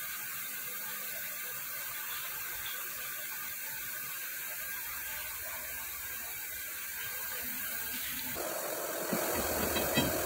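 Steady hissing workshop background noise. About eight seconds in it thickens into a fuller, lower rumble, and a light metallic click comes near the end.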